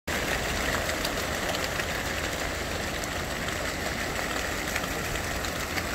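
A large flock of cormorants taking off together: a steady, dense rush of many wingbeats and feet slapping the water surface.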